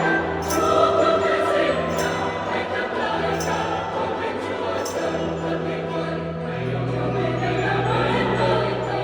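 Mixed church choir singing a Vietnamese Christmas hymn over steady sustained bass accompaniment, with a few sharp bright strikes in the high range.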